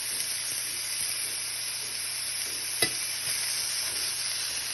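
Shishito peppers and portobello mushroom caps sizzling steadily in oil in a cast iron pan as they blister, turned with metal tongs, with one sharp click about three seconds in.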